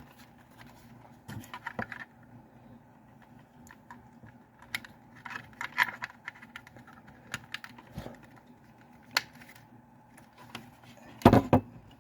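Scattered light clicks, taps and rattles of a USB cable and a plastic weather radio being handled and plugged in, with a louder clatter near the end.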